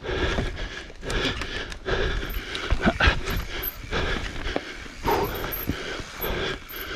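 Evil Wreckoning LB mountain bike riding down a rough dirt, root and rock trail at low speed: tyres rolling and scrabbling over the ground, with the bike clattering and knocking over bumps, a few sharp knocks about three seconds in, and the rider's hard breathing.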